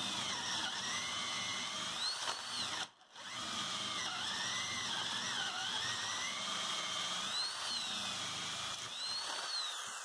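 A 14.4-volt cordless drill running on a full nickel-cadmium battery pack, boring a 1-inch spade bit into oak over pine. The motor's whine rises and falls in pitch as the bit loads up and frees. It stops briefly about three seconds in, then runs again.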